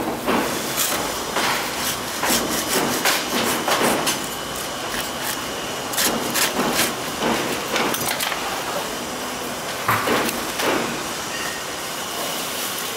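Butcher's cleaver chopping meat and bone on a wooden block: a series of irregular sharp knocks, one or two a second, pausing briefly about four seconds in and again near the end, over steady background noise.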